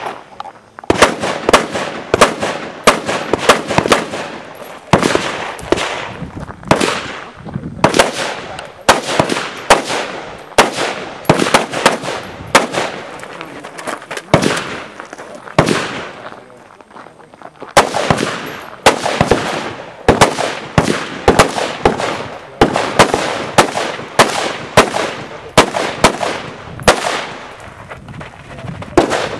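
Semi-automatic rifle fired in rapid strings of shots, several dozen in all, each shot with a short echo. There are brief pauses of a second or two about halfway through, and the firing then picks up again.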